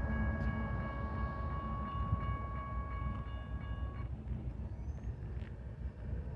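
Tail of a BNSF double-stack intermodal freight train, its GE ES44AC rear locomotive running, rumbling away and slowly fading. A grade-crossing warning bell rings with steady tones and stops suddenly about four seconds in, as the train clears the crossing.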